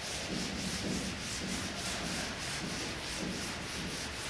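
Blackboard being wiped with an eraser: an even run of quick back-and-forth rubbing strokes across the board.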